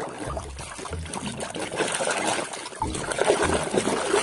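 Water sloshing and splashing as a muddy toy vehicle is washed in a tub of clean water, with a few low knocks of handling.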